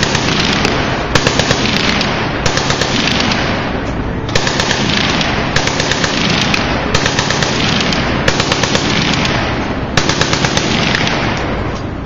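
Machine guns firing long bursts of automatic fire, about eight bursts in a row, each a second or so long and running straight into the next.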